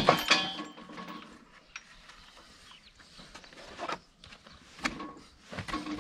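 A loud metallic clang with brief ringing at the start, from the steel hoof-trimming crate as the restrained cow shifts in it, followed by quieter scattered knocks and scrapes of hoof trimming.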